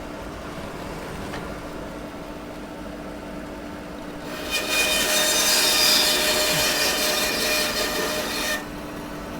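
Electric saw running steadily, then cutting through a block of split, drying hardwood for about four seconds in the middle. The cut is much louder than the motor's steady hum.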